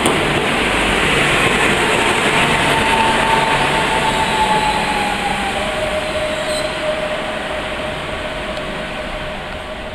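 Koleje Małopolskie electric multiple unit arriving at a station platform: the rumble of wheels on rail, loudest early and fading, with a thin brake or wheel squeal that slides down in pitch partway through and then holds as the train slows.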